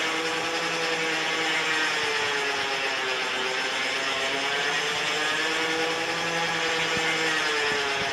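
An electric motor runs with a steady whine whose pitch slowly wavers up and down, driving the telescoping mast of a US Tower MA40 crank-up tower.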